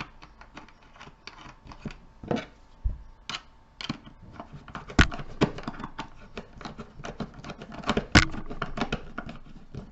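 Screwdriver tightening a terminal screw in a plastic 30 amp junction box, with irregular small clicks and taps of the box being handled; two sharper knocks about five and eight seconds in.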